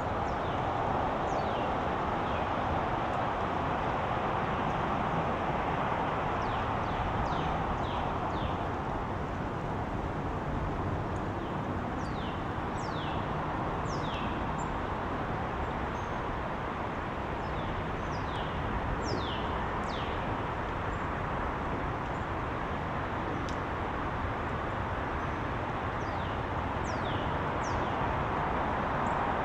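Small birds at a backyard feeder giving short, sharply falling chirps, scattered in clusters, over a steady background rumble.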